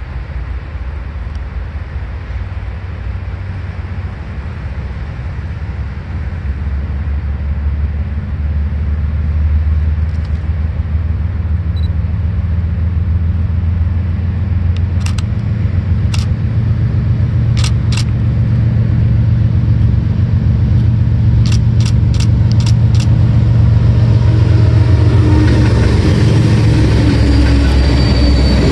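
Diesel freight locomotives rumbling as they approach, growing steadily louder, then passing close with the rush of steel wheels on the rails near the end. A scatter of sharp clicks comes about halfway through.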